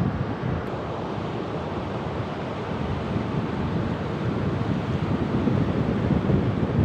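Sea waves washing in a steady surge, with wind rumbling on the microphone; the wash grows a little louder toward the end.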